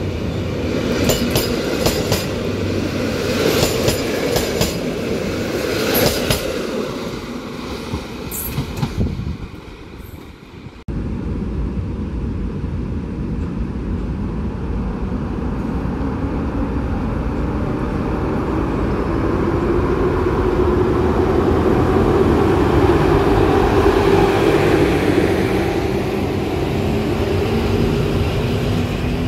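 PKP Intercity passenger coaches rolling past, their wheels clicking over the rail joints above a rumble. After a cut, an EP07 electric locomotive and its train run along the platform with a steady rumble and a hum that rises in pitch.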